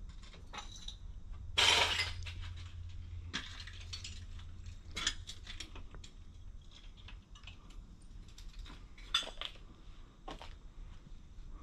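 Broken glass and debris crunching and clinking underfoot in scattered steps, the loudest crunch about two seconds in and another about nine seconds in.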